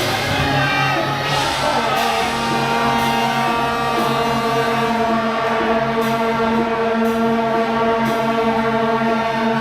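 Music with long held notes and voices singing.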